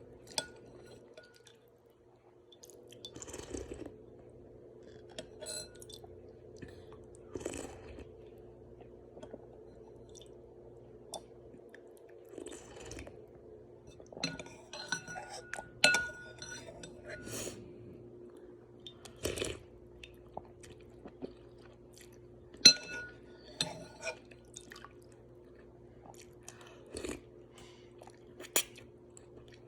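Eating a bowl of ramen: utensils clink against the bowl now and then, with chewing and wet noodle sounds between, over a steady low hum.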